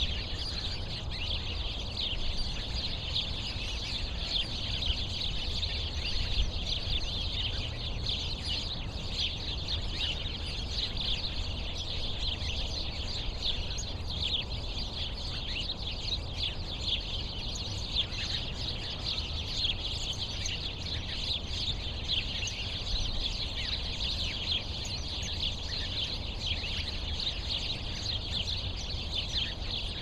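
A flock of small birds chirping and chattering continuously, many short, high, overlapping chirps with no pause, over a steady low background rumble.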